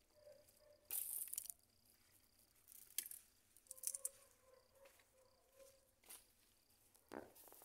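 Garden plants being pulled and torn by hand: a few short rustling, tearing bursts of leaves and stems, with quiet gaps between.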